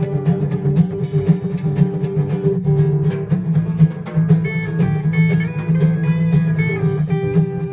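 Instrumental music: an acoustic guitar strummed in a steady, busy rhythm over held low notes.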